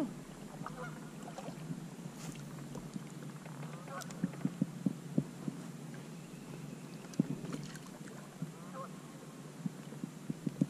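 Geese honking faintly a few times, short arched calls, over scattered sharp clicks and knocks of fishing gear being handled in a kayak.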